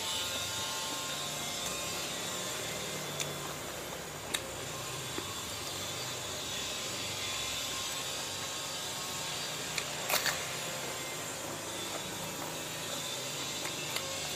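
Steady rushing background noise from a house renovation going on nearby, with a few short clicks and a quick cluster of louder clicks about ten seconds in.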